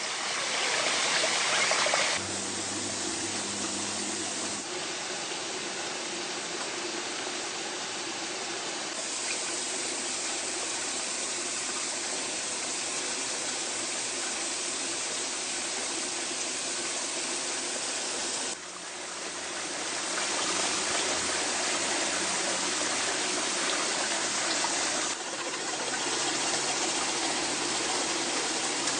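Steady rushing of a stream and small waterfall, an even hiss of water that jumps in level and tone several times.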